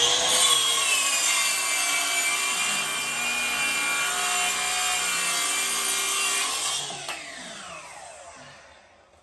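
Circular saw running and cutting through wood, its whine rising to speed at the start and holding steady for about seven seconds, then falling away as the blade winds down.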